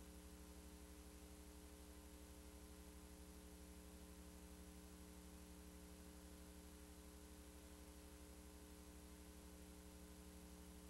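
Near silence: a faint, steady hum over a low hiss, unchanging throughout.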